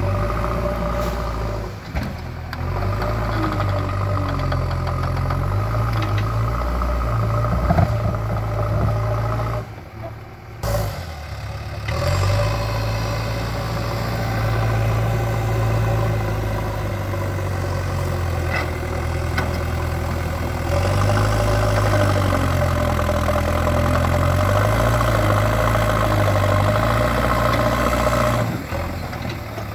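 JCB 3DX backhoe loader's diesel engine running, its speed stepping up and down repeatedly as the machine works to roll a large stone. Its level drops briefly about ten seconds in.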